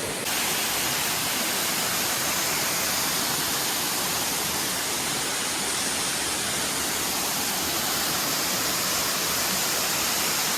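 A waterfall's water falling in a steady, even rush.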